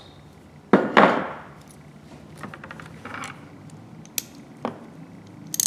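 Two sharp metal clanks with a ringing tail about a second in, as steel hand tools knock on the workbench. A few light clicks follow as a freshly reassembled quarter-inch ratchet is handled.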